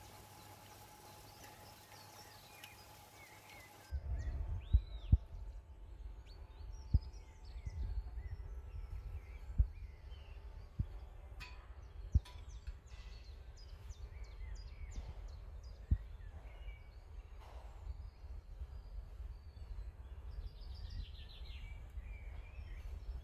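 A faint steady hum for the first few seconds. Then a low rumble with about six sharp knocks, and birds chirping faintly in the background.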